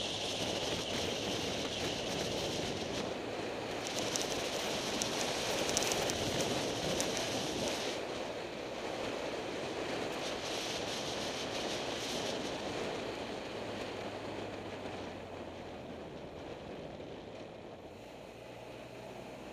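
Wind rushing over the microphone of a moving vehicle, with a low steady engine hum underneath. The hiss is strongest in the first half and eases off in the second half.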